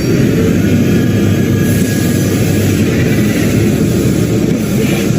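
Steady low rumble of a CNC lathe cell with a gantry robot loader running, even and unbroken, without distinct clanks or strokes.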